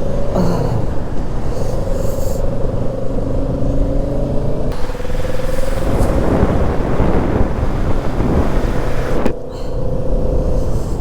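Motorcycle engine running under way with the rush of wind on the microphone; the engine pitch climbs slowly and drops back about half a second in, near five seconds and just after nine seconds.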